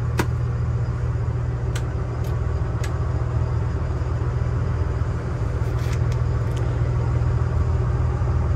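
Steady low engine hum inside a step van, with several light clicks from the control-panel switches and cabinet door.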